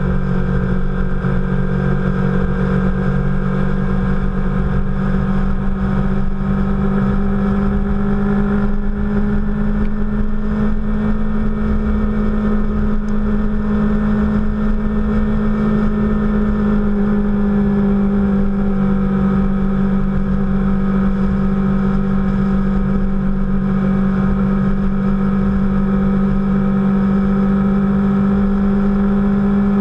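Motorcycle engine running at a steady road cruise, its pitch sagging slightly about midway and then picking back up, with wind rush on the mounted camera.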